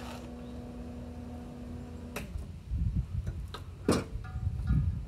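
Lincoln welder humming steadily, then cut off with a click about two seconds in as it is switched off. Rumbling handling noise and a few sharp knocks follow, the loudest clack near four seconds.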